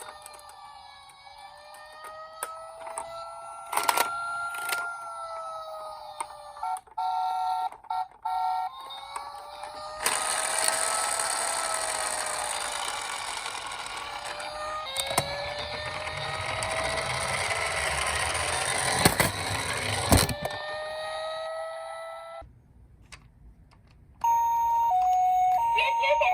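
Electronic toy emergency-vehicle sirens. A wailing fire-engine siren rises and falls slowly. A two-tone hi-lo ambulance siren cuts in briefly about 7 seconds in and starts again near the end. From about 10 seconds to 22 seconds a loud noisy rush with a few sharp clicks runs under the wail.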